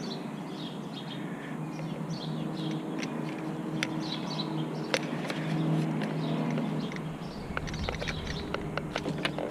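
Birds chirping over a steady low hum, with a run of light clicks and taps in the last couple of seconds.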